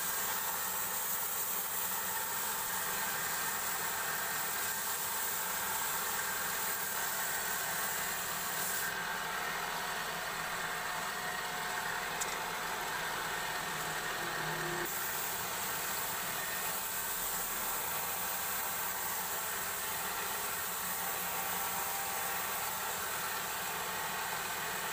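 Wood lathe running steadily, spinning a wooden spindle blank, with a steady motor hum and hiss. A brighter hiss joins in for several seconds about a third of the way in.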